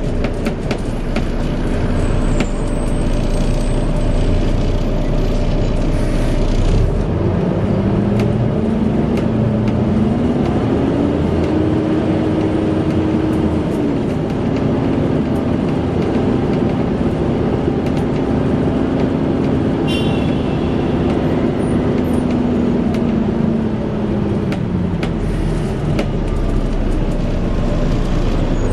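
Volvo B7TL bus running with its cooling fan making the whining 'hoover' sound over the engine. About a quarter of the way through the whine rises in pitch and settles, holds steady, then falls away near the end.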